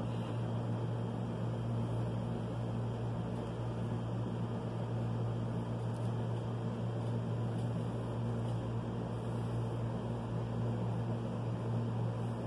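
A steady low hum of room machinery, with faint scratching of a pencil drawing lines on paper.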